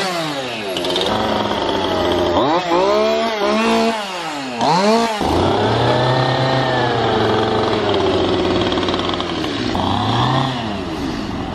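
Two-stroke gas chainsaw being revved, its engine pitch rising and falling in several quick blips, then a longer, slower swell that settles back to a lower run.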